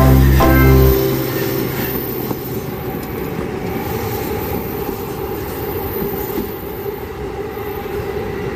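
Toden Arakawa Line tram running along its rails as it pulls away, a steady rumble of wheels and running gear that slowly fades.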